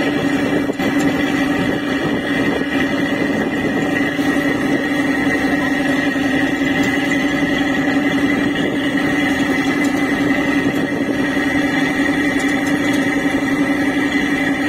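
River boat's engine running steadily under way, a constant drone with a strong steady hum that does not change.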